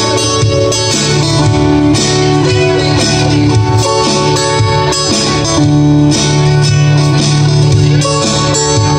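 Two guitars played live together, an acoustic guitar strumming chords alongside a second guitar, in a steady instrumental passage.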